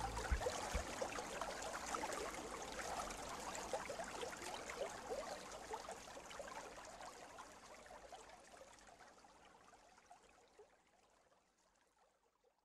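Running water of a small stream, trickling and babbling with many little splashes, fading out slowly and evenly to silence near the end.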